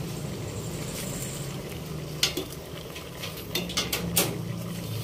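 Ingredients being arranged in a metal pot of raw fish and chilies, with a few sharp clicks of a utensil against the metal about two seconds in and a cluster more near the end, over a low steady hum.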